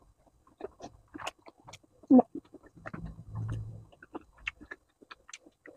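Close-miked chewing and wet mouth sounds of a person eating meatball soup with noodles: many small irregular clicks and smacks, with one louder mouth sound about two seconds in and a low hum from the closed mouth around three to four seconds in.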